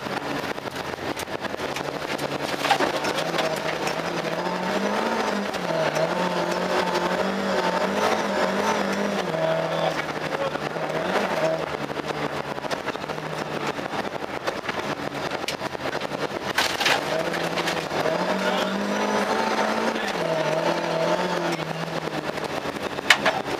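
Volvo 240 rally car's engine heard from inside the cabin at full stage pace on gravel, revs climbing and dropping again and again through gear changes, over a steady rush of gravel road noise. A few sharp knocks cut through, the loudest near the end.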